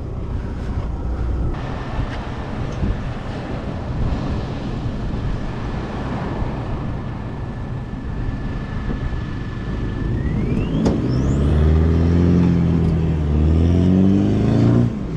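A bogged four-wheel drive's engine revving as it is pushed and driven out of soft sand. Its note rises and falls in the last few seconds over a steady rushing noise. A thin steady whistle runs through the middle and sweeps sharply upward about ten seconds in.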